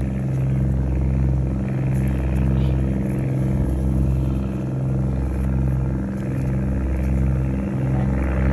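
A small engine running steadily at a constant speed: a low, even drone with a slight regular pulse.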